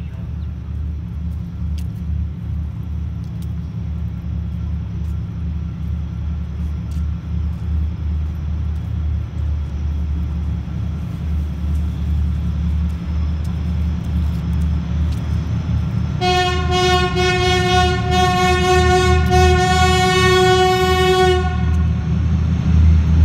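2TE10U diesel locomotive approaching with a freight train: the steady low rumble of its two-stroke 10D100 diesel engines grows louder as it nears. About 16 seconds in it sounds one long horn blast, lasting about five seconds.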